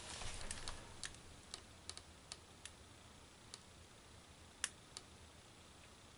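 Faint, irregularly spaced sharp ticks and clicks, about a dozen, over quiet woods, with a soft rustle in the first second.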